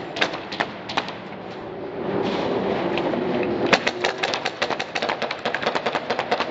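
Airsoft gunfire: scattered sharp clacks at first, then a fast run of about nine a second from a little under four seconds in.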